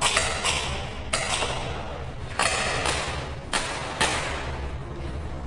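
Gas-powered BB pistols firing, about six sharp pops at irregular intervals, each with a short echoing tail.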